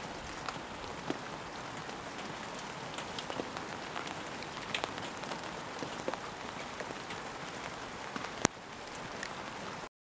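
Steady rain falling, with many small drop ticks on nearby surfaces. One sharp click stands out a little over eight seconds in, and the sound cuts off abruptly just before the end.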